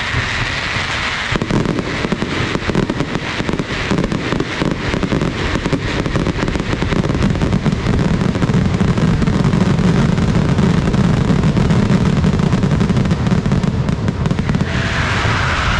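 Dense aerial fireworks barrage: rapid crackling over a continuous low rumble of shell bursts, growing heavier about halfway through.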